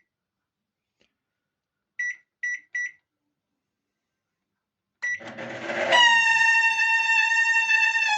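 Three short microwave-oven keypad beeps, then the oven starts with another beep and a hum, and about a second later a loud, steady, high-pitched squeal sets in. The squeal comes from the oven's cooling fan motor, whose bearing is dry and needs lubricating.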